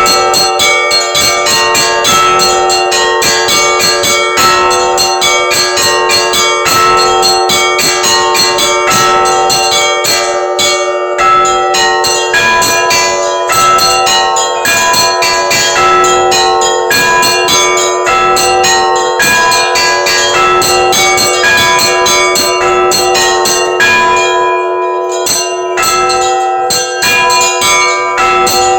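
Russian Orthodox church bells rung together close up in the belfry: rapid strokes of the small bells over the sustained ringing of the larger bells, loud and continuous, with a brief lull in the small bells near the end.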